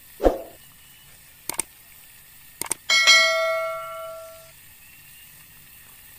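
Subscribe-animation sound effects: a low thud, two pairs of quick clicks, then a bright notification-bell ding about three seconds in that rings out for a second and a half.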